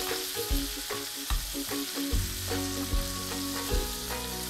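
Butter foaming and sizzling in a frying pan around pepper-crusted beef steaks, with a spoon dipping into the hot butter and ladling it over the meat: basting, which keeps the steaks juicy while they form a crust.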